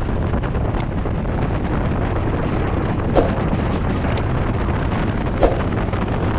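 Heavy wind rush on the microphone of a motorcycle riding at speed, covering the engine. A few sharp clicks cut through it, the loudest about three seconds in and again about five and a half seconds in.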